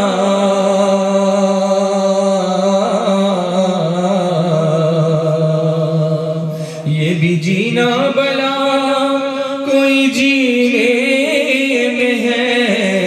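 A man singing a naat, unaccompanied. He draws out long held notes with no clear words, and breaks briefly for breath about seven seconds in.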